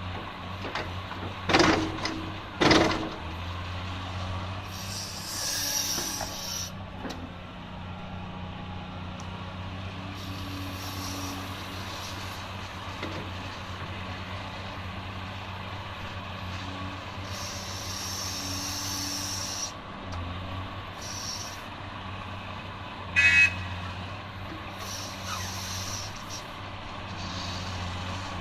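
Heavy diesel machinery running steadily on a steady low drone, from the Cat 345D L excavator working with trucks. There are two loud knocks a second apart near the start, several short bursts of hiss, and one brief high beep about two-thirds of the way through.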